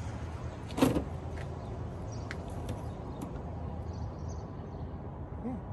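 Stock Subaru BRZ tail light housing being pulled out of the body: a sharp plastic snap about a second in as it pops free, then a few light clicks of the plastic housing, over a steady low hum.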